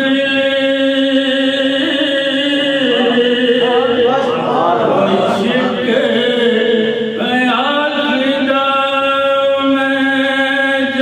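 A man chanting a religious recitation into a microphone, unaccompanied: long held notes that step between pitches, with an ornamented run of quick pitch turns in the middle before settling back onto a held note.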